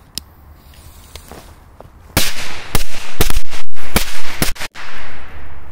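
Small firecrackers exploding: a quick run of several sharp, loud bangs over about three seconds, starting about two seconds in.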